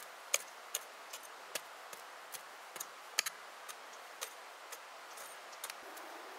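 A series of light, sharp clicks or taps, roughly two to three a second and somewhat irregular, over a faint steady hiss.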